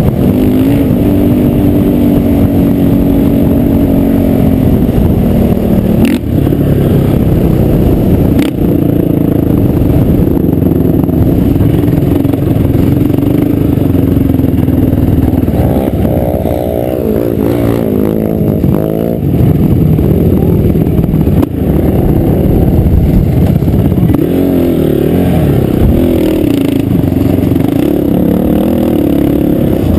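Honda 450 engine running loudly under the rider, its pitch rising and falling with the throttle, with quick revs in the middle and again near the end.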